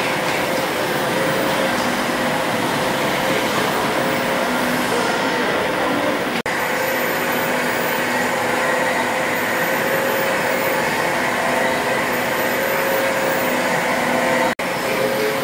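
Stationary steam engines running: a steady mechanical din with a few faint steady tones. It breaks off for an instant twice, about six seconds in and near the end.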